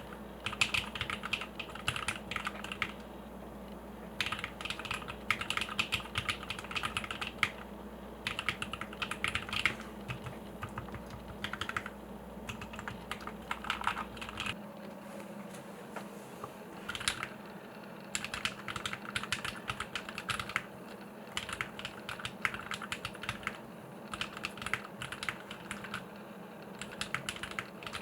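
Typing on a Keycult No.2/65 mechanical keyboard with a thin polyurethane foam pad between PCB and case: bursts of rapid key clicks with short pauses between them.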